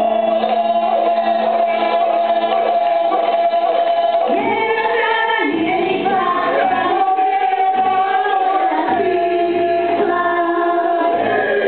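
Music: several voices singing together in long held notes that slide between pitches, choir-like and with little or no accompaniment.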